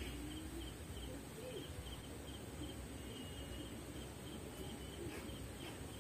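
Faint outdoor ambience: an insect chirping in a steady rhythm, a few short high chirps a second, over a low background hiss.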